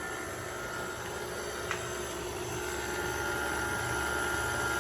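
Electric mixer running steadily, beating cake batter, with a steady motor hum. It grows slowly louder, and a higher steady tone comes in about halfway through.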